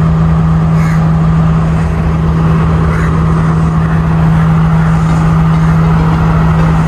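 Diesel train engine idling, a loud steady drone with one strong low hum.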